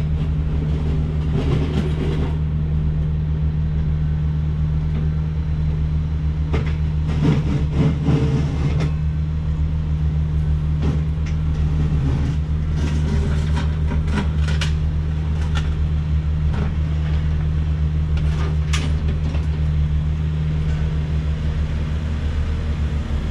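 A woodworking machine's electric motor running steadily with a low hum, with scattered clicks and knocks, a louder cluster of them about seven to nine seconds in.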